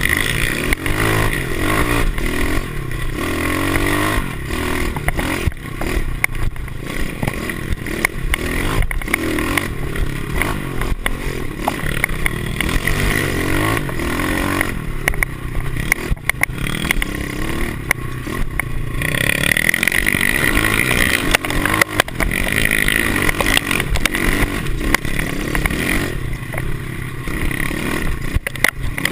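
Pit bike's single-cylinder four-stroke engine revving up and down as it is ridden hard over a bumpy dirt trail, heard from the handlebars. Rattling and knocks from the bike over the bumps run throughout.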